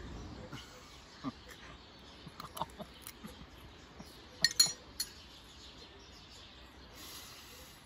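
Metal spoon clinking against a small ceramic dish: a quick cluster of clinks about four and a half seconds in, with a few fainter ticks before it.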